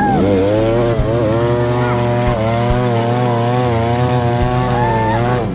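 A motor running hard and steadily under heavy load, its pitch dipping and then slowly rising, as a stuck off-road vehicle is worked free on a muddy trail.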